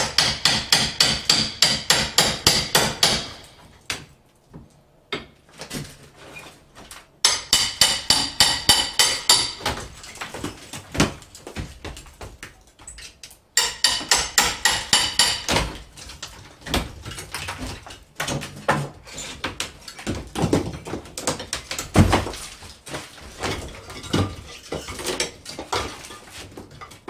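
Three bursts of rapid, evenly spaced sharp strikes, about seven a second, as old plaster over metal mesh is broken off a wall. After them come scattered, irregular thuds and clatter of heavy plaster pieces hitting the floor.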